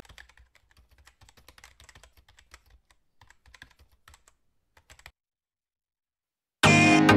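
Faint computer-keyboard typing: an irregular patter of keystroke clicks that stops about five seconds in. Music with a steady beat starts loudly near the end.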